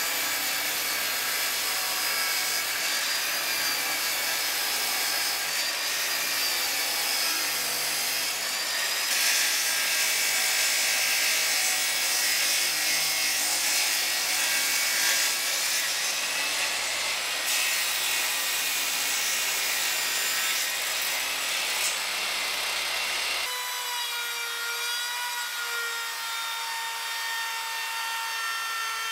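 Table saw ripping a long strip of dark hardwood: a dense cutting noise over a steady high blade whine, heaviest between about 9 and 16 seconds in. It then cuts abruptly to a compact trim router's motor running with a steady whine.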